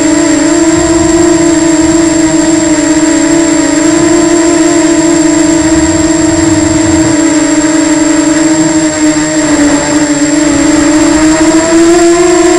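Quadcopter's electric motors and propellers whining steadily, heard close up from a camera mounted on the craft. The pitch wavers with the throttle, dips a little about nine seconds in and rises again near the end.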